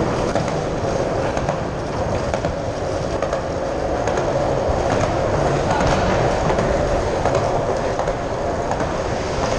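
Hard plastic wheels of a child's ride-on trike and kick-scooter wheels rolling and grinding along a concrete floor, a steady rumbling noise, echoing in the concrete garage.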